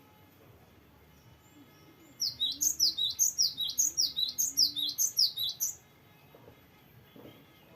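Cinereous tit (gelatik batu) singing a long rolling phrase: a fast string of repeated high, downward-sliding notes, about four or five a second, starting about two seconds in and lasting about three and a half seconds.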